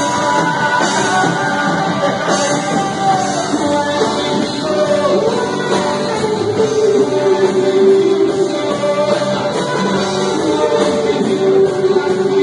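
Live worship band playing: drum kit with cymbals, electric guitars and singing.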